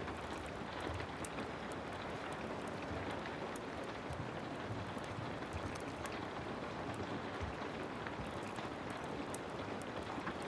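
Heavy rain falling steadily, mixed with the scattered sharp crackles of a wood fire in a fireplace.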